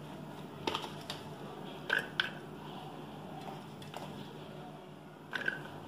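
A handful of light clinks and taps, a spoon or utensil against a stainless steel bowl as chopped onion is tipped in, over a low steady hum.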